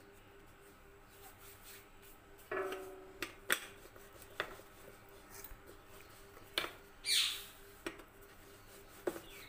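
Dough being rolled out with a rolling pin on a board: scattered knocks of the pin, a short squeak about two and a half seconds in, and a scraping swish near the end.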